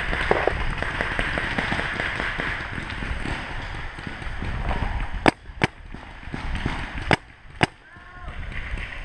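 Paintball marker firing four sharp shots in two pairs, about five seconds in and again a second and a half later. Before them there is a stretch of fainter rapid pops and hiss.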